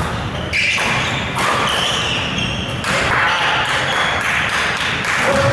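Badminton play in a large echoing hall: sharp racket strikes on a shuttlecock and footwork on the court floor, repeated knocks over the steady din of play on other courts.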